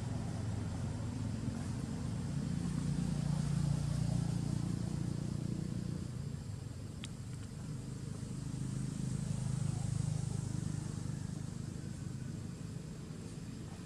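Low, steady engine drone that swells louder twice and eases off again, like a motor vehicle running.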